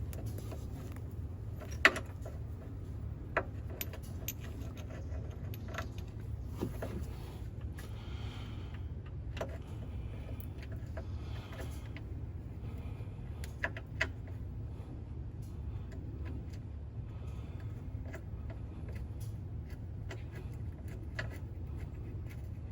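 Scattered metallic clicks and clinks of hand tools and car parts being handled, the sharpest about two seconds in, over a steady low hum.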